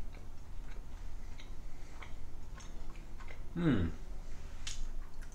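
A person chewing a mouthful of fish, with faint scattered clicks and mouth sounds, and a short hummed 'mmm' falling in pitch about three and a half seconds in.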